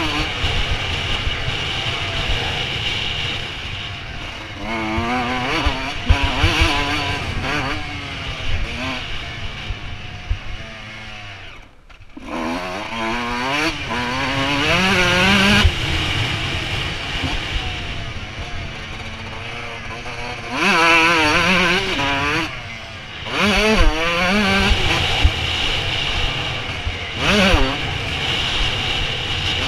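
Suzuki RM125 single-cylinder two-stroke motocross engine ridden hard, its pitch sweeping up through the revs again and again and dropping back between pulls. About twelve seconds in the throttle is shut and the sound falls away for a moment before the engine revs back up.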